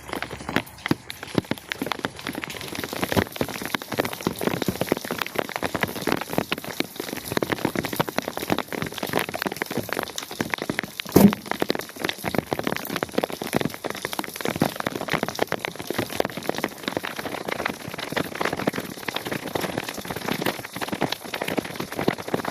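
Rain falling steadily, a dense patter of drops on a surface, with one louder knock about halfway through.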